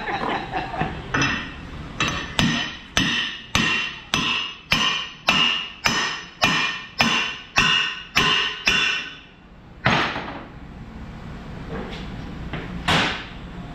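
Hand hammer striking a steel driveshaft held in a bench vise: about fourteen ringing metallic blows, just under two a second, then two more single knocks after a pause.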